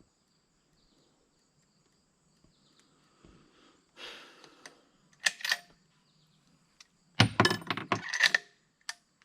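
Short bursts of clicking and rattling handling noise, in three groups, the loudest and longest in the last few seconds.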